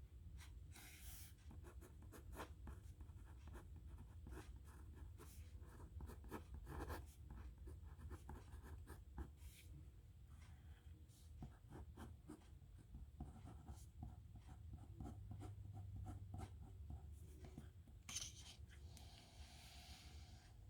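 Nib pen scratching on paper in many short, quick strokes of handwriting, faint over a low room hum, with a sharper scrape about 18 seconds in.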